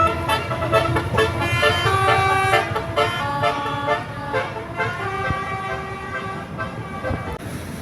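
Bus telolet horn playing a tune of short held notes that change pitch in steps, over the rumble of the bus; the horn stops near the end.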